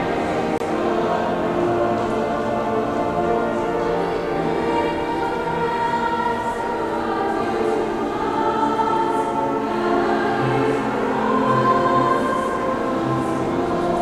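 Mixed high school choir of girls' and boys' voices singing together in several parts, holding long notes.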